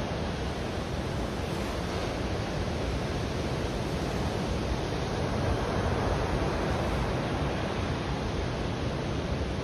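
Steady rushing of surf and wind on a GoPro's microphone.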